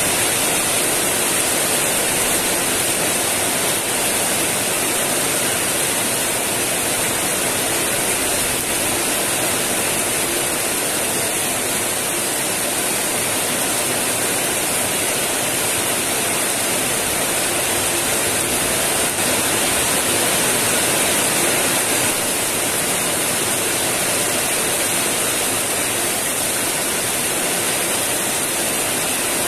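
Heavy rain pouring steadily: a dense, even hiss.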